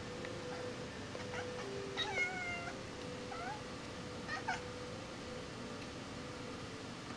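Kitten's short barking calls at a fly she is hunting: four brief calls between one and five seconds in, the loudest about two seconds in.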